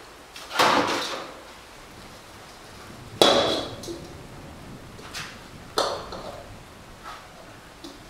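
Hammer blows on steel: three heavy strikes a few seconds apart, with lighter taps between them, each ending in a short metallic ring.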